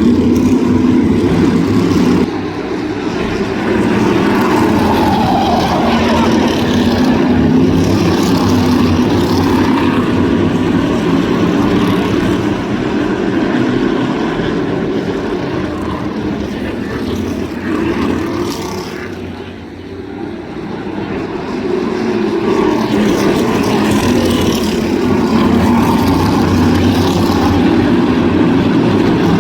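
Crate-engine V8 modified race cars running at speed on a short oval, engines rising and falling in pitch as the cars pass, fading briefly about two-thirds of the way through before building again.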